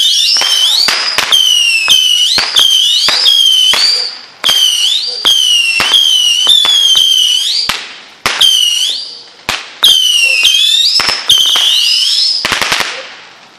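Whistling fireworks going off one after another: a near-continuous chain of shrill whistles, often overlapping, each rising in pitch and ending in a sharp pop. Near the end comes a short burst of hissing crackle.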